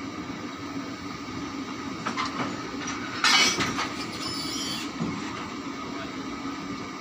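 Steady hum of a standing EP20 electric locomotive's machinery. A few metal knocks from the coupling between locomotive and coach about two seconds in, then a short loud burst of noise there about three seconds in.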